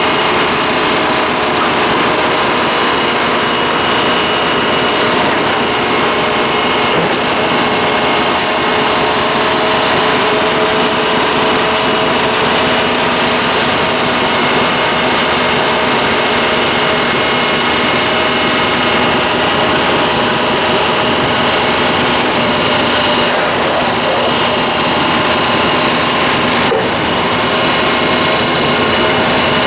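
Slow-moving rail train of flatcars loaded with rail-handling machinery passing close by: a steady metallic whine with several sustained high squealing tones from steel on steel, unbroken throughout.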